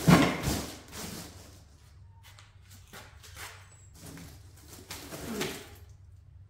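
A loud rustle and knock right at the start, then scattered light clicks and knocks, and a short animal call falling in pitch about five seconds in.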